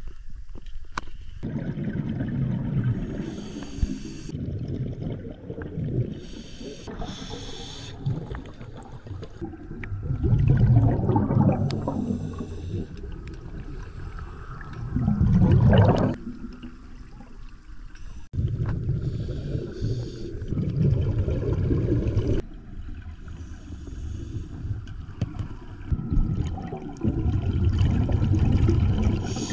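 Scuba breathing through a regulator underwater: a short hiss on each inhale alternating with longer bursts of bubbling exhaust every few seconds.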